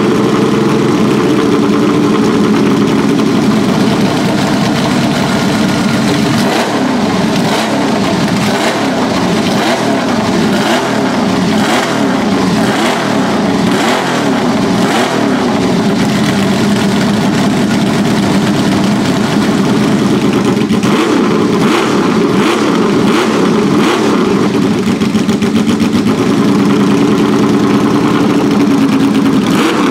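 Ferrari 156 F1 'Sharknose' 1.5-litre V6 racing engine running on warm-up. It idles steadily at first, then is blipped repeatedly through the middle, the revs rising and falling, before settling back to idle near the end.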